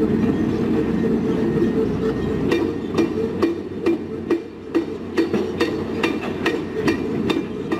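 Heavy construction machinery running with a steady low rumble. About a third of the way in, sharp knocks start, roughly two a second, while the rumble fades.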